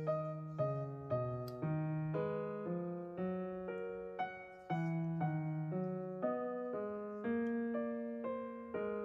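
Background piano music: single notes and soft chords at an even, unhurried pace of about two a second, each note struck and left to fade.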